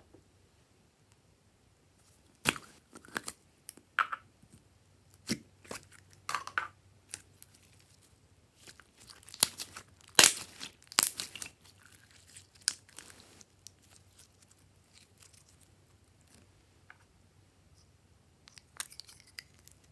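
Glossy slime being worked by hand: irregular sticky pops, clicks and crackles as it is stretched, folded and pressed, thickest about halfway through.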